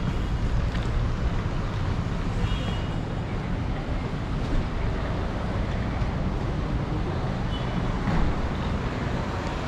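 Steady low rumble of passing road traffic mixed with wind noise on the microphone.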